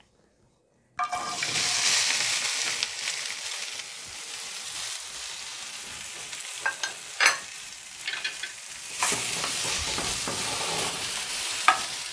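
Chopped okra hitting a tablespoon of hot oil in a non-stick frying pan: a sudden loud sizzle about a second in that settles into a steady frying hiss. There is a fresh surge of sizzling about nine seconds in, and a few sharp clicks along the way.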